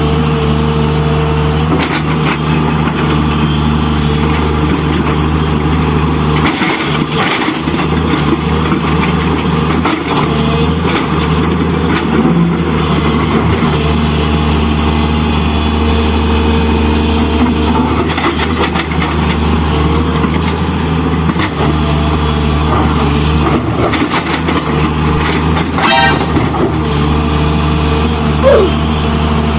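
An engine running steadily with a low, even drone, with scattered clicks and rattles over it.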